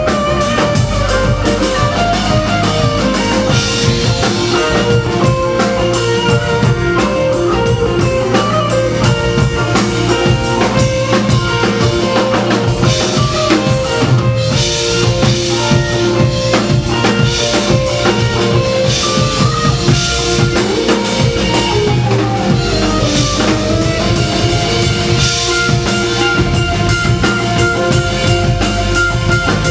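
Live rock band playing: electric guitars over a drum kit with cymbals, loud and steady. A melody line glides down and back up in pitch about three-quarters of the way through.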